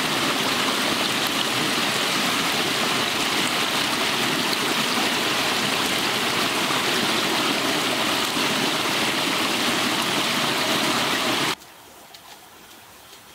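Water rushing steadily through a woven bamboo fish trap in a narrow channel, a continuous splashing flow. It cuts off suddenly about eleven and a half seconds in, leaving only faint outdoor background.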